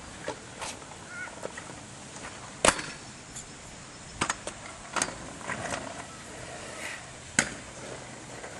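Madd Gear Pro kick scooter clacking on asphalt as the deck and wheels slap down on trick landings: several sharp clacks, the loudest nearly three seconds in, with others later, one of them a quick double.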